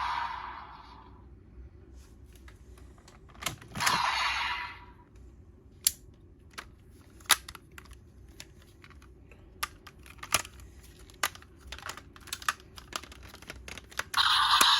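Scattered plastic clicks and clacks from a DX X Geats transformation-belt buckle toy being handled and worked. A short burst of sound from the toy's speaker comes about four seconds in, and another starts near the end.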